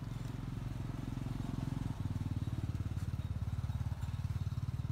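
A small engine running, with a low, rapid, even pulsing that grows louder about two seconds in.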